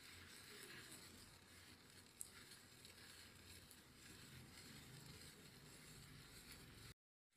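Near silence: a faint steady hiss with a single small click about two seconds in. The sound drops out completely just before the end.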